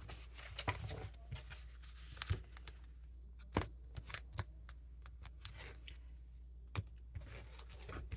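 Tarot cards being handled: short card slaps and snaps at uneven intervals with soft rustling between them, over a faint steady low hum.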